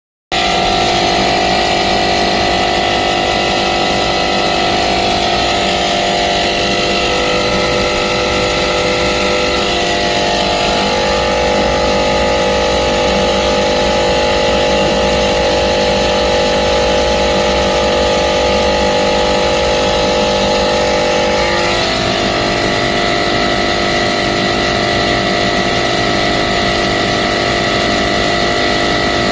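Air-conditioner compressor running with an abnormal sound, the sign of a faulty compressor. A steady mechanical drone with several steady tones, whose pitch pattern shifts about a third of the way through and again about two-thirds through.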